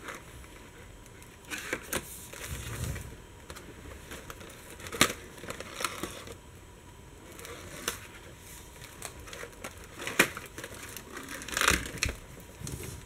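Stiff paper and card of a pop-up book rustling and crinkling as the pages are handled and turned and the folded pop-ups open out. Short crackles come at intervals, the loudest about ten and twelve seconds in.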